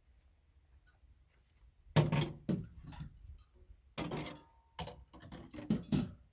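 A run of sharp knocks and clattering as refrigerator parts are pulled and handled during teardown. The loudest knock comes about two seconds in, and more follow over the next four seconds.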